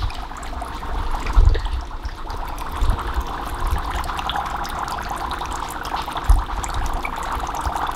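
Dry ice bubbling and fizzing steadily in water in a frying pan, giving off heavy fog, with a few low bumps.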